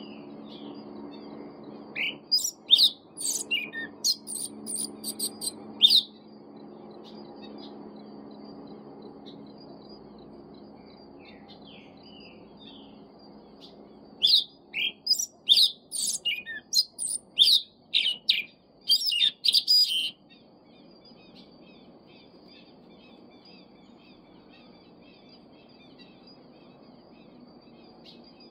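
Caged sabiá-preta thrush singing two loud bouts of rapid, sharp high notes, one starting about two seconds in and the other about fourteen seconds in, each lasting four to six seconds. Between them are a faint steady high chirping and a low hum.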